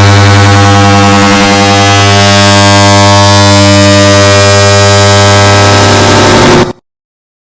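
Air conditioner start-up sound stacked and amplified into a loud, distorted buzzing drone: a steady low hum with many overtones. It cuts off suddenly near the end and starts again just before the end.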